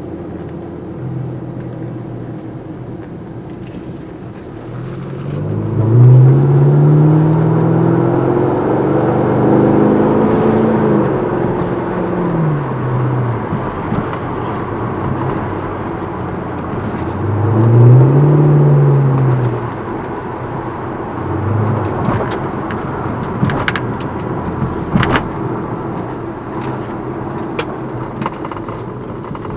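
Chevrolet Camaro SS V8 through a sport exhaust with the intermediate and rear mufflers removed and only the catalytic converter kept, idling and revved twice. A long rev begins about five seconds in, is held for several seconds and drops back to idle, and a shorter rev comes a few seconds later.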